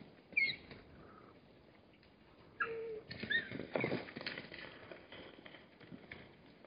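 Hartmann's mountain zebras moving about on gravelly ground: scattered hoof steps and scuffs, busiest a little before the middle. A few short, high, gliding chirps come about half a second in and again around the middle.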